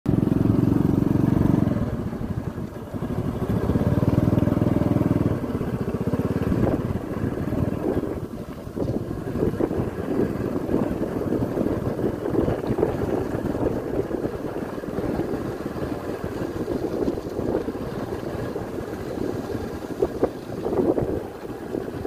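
Motorcycle engine running as it rides along a dirt track, louder in two stretches within the first five seconds, then a rougher running sound for the rest.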